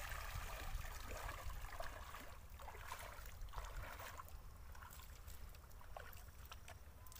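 Shallow pond water splashing and sloshing around a wading person's legs and a woven basket as the water drains from it, with irregular splashes that fade over the last few seconds as he steps out onto wet mud.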